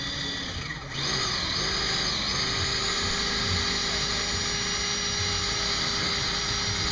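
Cordless drill boring a hole through a wakeboard tower's metal tube: a loud, steady, high-pitched whine as the bit cuts, starting about a second in.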